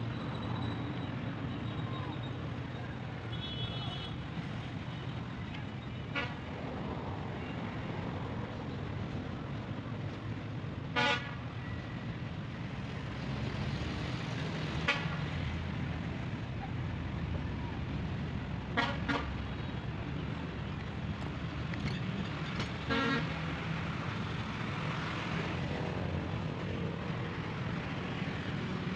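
Steady road traffic noise with about five short vehicle horn toots spread through it, the loudest two near the middle.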